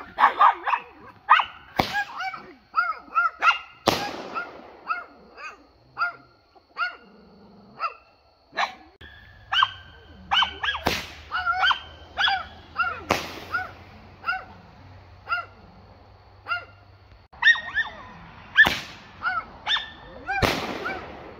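Miniature aerial firework shells going off with about six sharp pops, the loudest sounds here. A dog barks rapidly and repeatedly throughout.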